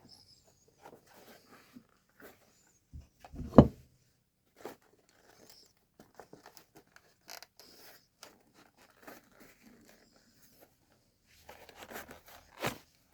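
Scattered small clicks, taps and rustles of hand tools and leather being worked at a bench, with one sharp knock about three and a half seconds in and a few more knocks near the end.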